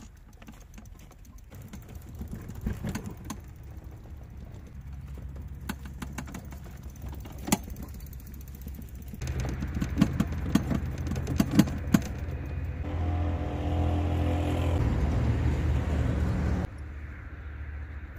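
Bicycle towing a homemade camper trailer, pushed over rough dirt ground, the trailer and bike rattling with scattered sharp knocks and clicks. About nine seconds in, a louder steady rumble joins with more knocks, and it cuts off suddenly near the end.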